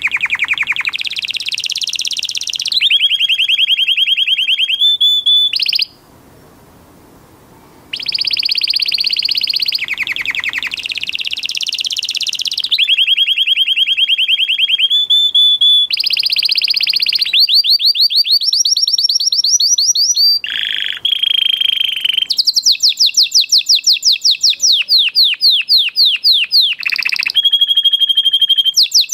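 Canary singing loudly: long rolling trills of rapidly repeated notes, each held for a second or more before switching to a new pitch, with a short pause about six seconds in.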